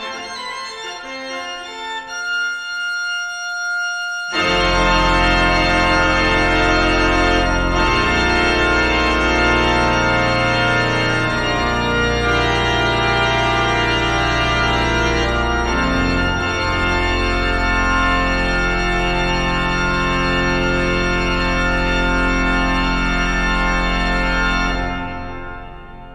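Background music of sustained organ chords: a thinner, quieter passage for the first few seconds, then full held chords from about four seconds in, fading out near the end.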